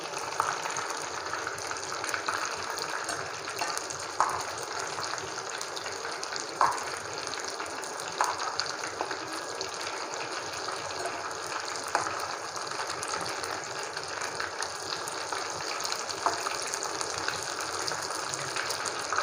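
Hot oil sizzling and bubbling steadily around batter-coated kabab pieces deep-frying in a pan, turned over partway through cooking. A few short knocks of the metal slotted spoon against the pan stand out above the sizzle as the pieces are turned.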